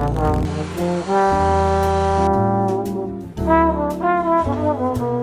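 Background music: a jazzy brass-led tune over a bass line and drums, with one long held note starting about a second in.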